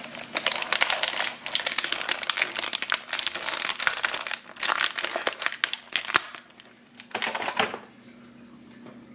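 Clear plastic bag crinkling as hands rummage through it and pull out a small plastic toy figure, in quick crackly runs with short pauses; it dies away near the end.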